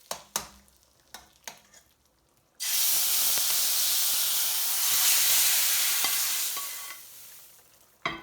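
A few light clicks of a utensil against a pan, then a sudden loud sizzle as food hits hot oil in a cooking pan, holding for about four seconds before dying away.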